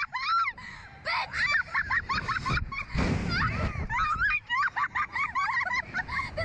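A woman on a Slingshot thrill ride letting out rapid, high-pitched shrieks and squeals of laughter, several a second. Wind rushes past the rider about three seconds in.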